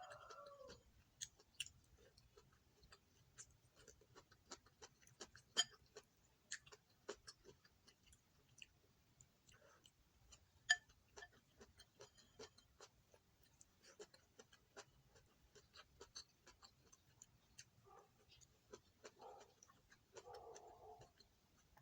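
Close-up eating sounds: chewing, with many short, irregular sharp clicks and smacks, and a few soft muffled mouth sounds near the end.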